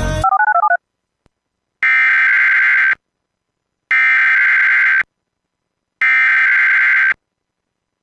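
Emergency Alert System SAME header: three bursts of warbling digital data tones, each about a second long with about a second between them. Before them, a quick run of short paired beeps like telephone touch-tones, ending within the first second.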